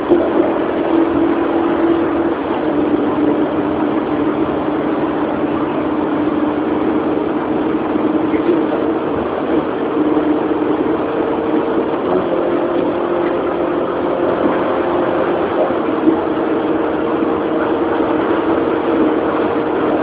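A car engine running at a steady speed with road and cabin noise. Its pitch shifts slightly a couple of times.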